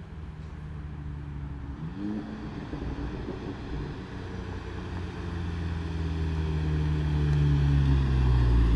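2015 Volkswagen Mk7 GTI's turbocharged 2.0-litre four-cylinder running through a Borla S-Type catback exhaust and APR downpipe. It gives a steady exhaust note with a short rise in pitch about two seconds in, then grows steadily louder toward the end.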